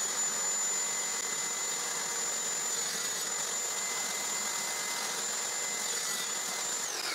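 Table saw running at speed with a steady high whine while a thin wood strip is miter-cut on a sled. Near the end the saw is switched off and the whine falls in pitch as the blade spins down.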